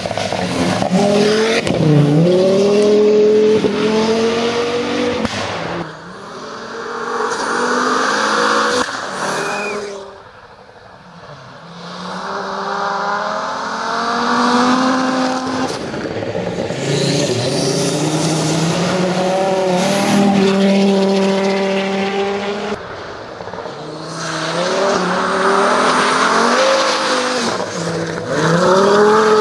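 Audi 80 quattro rally car driven hard on gravel, heard in a run of separate passes: the engine revs rise and fall again and again through gear changes. The sound jumps abruptly between passes, with a brief quieter stretch about ten seconds in.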